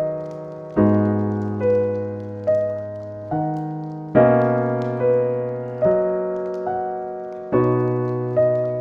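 Slow, calm solo piano music, single notes over low bass chords. A new note is struck a little under once a second, and each one rings and fades before the next.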